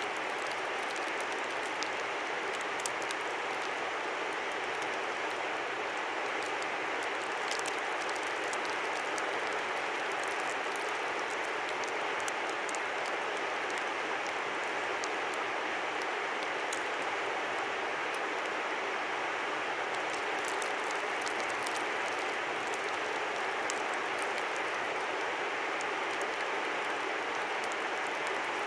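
A river flowing steadily, a constant rushing of water, with scattered faint high ticks through it.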